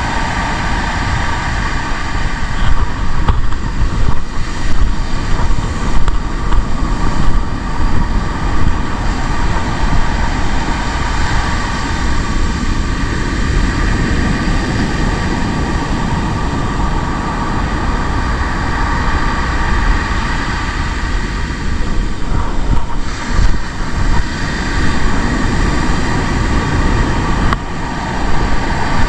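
Strong wind buffeting the microphone over the roar of breaking surf: a steady rushing noise with louder gusts.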